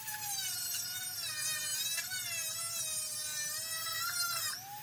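Handheld high-speed rotary tool whining as it grinds Kydex, its pitch wavering up and down with the load. The pitch dips briefly near the end, then picks up again.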